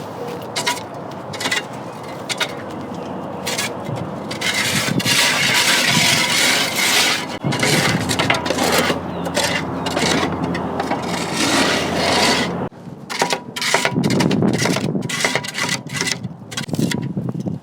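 A heavy steel bulldozer blade scraping and grinding along the ground as a wheel loader moves it. The noise rises and falls and dips briefly about thirteen seconds in.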